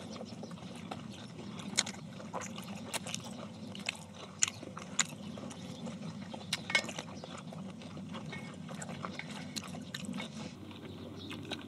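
People eating: chewing, with scattered sharp clicks of chopsticks and spoons against stainless steel rice bowls.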